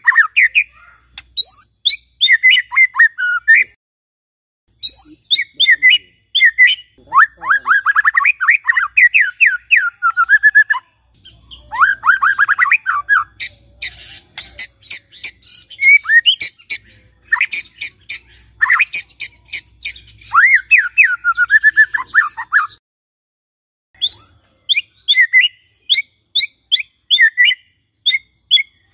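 White-rumped shama singing in loud phrases of fast repeated notes, mostly falling in pitch and mixed with sharp clicks, with three short pauses.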